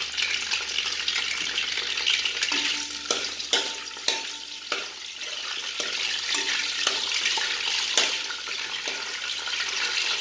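Curry leaves, pandan leaf and whole spices sizzling steadily in hot oil in a steel pan. There are several sharp taps and scrapes against the pan, a few with a brief metallic ring, as they are stirred.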